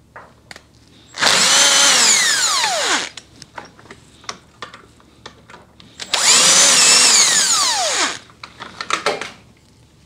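Milwaukee M18 cordless impact driver spinning out the screws that hold a Ford ignition switch to the steering column, in two runs of about two seconds each. Each run is a motor whine that falls steadily in pitch, with light clicks and handling between.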